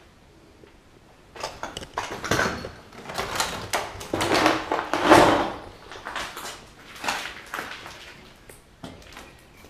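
Footsteps crunching and scraping through fallen plaster, broken wood and rubble, with clattering knocks of debris. It starts about a second in and is loudest about halfway through.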